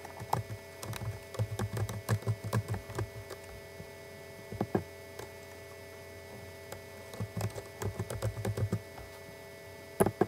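Typing on a computer keyboard: a quick run of keystrokes as a username is entered, a short pause with a couple of keystrokes, then a second run as a password is entered, and a single louder click near the end.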